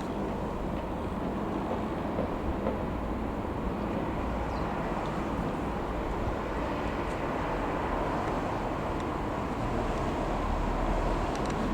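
Light aircraft engine and propeller running steadily, a constant drone with a rushing noise and no change in pitch.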